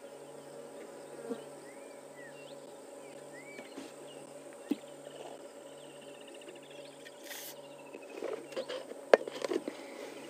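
Steady insect buzzing and droning, with a few short chirping bird calls and a quick trill. Near the end comes a cluster of clicks and knocks, the loudest about nine seconds in.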